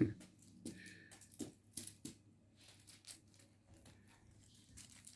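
Cats' paws and claws scratching and tapping in play: scattered light scrapes and ticks, irregular and close together.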